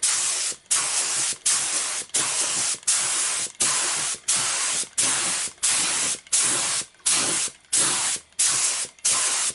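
Compressed-air paint spray gun hissing in a rapid series of short bursts, about one every 0.7 seconds, as the trigger is pulled and released. It is misting a coat of pure blending thinner over a paint repair.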